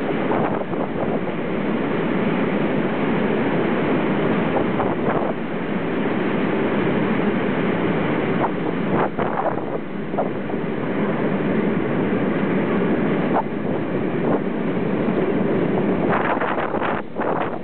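Train running steadily at speed, heard from an open carriage window, with wind rushing across the microphone; a run of short clicks near the end.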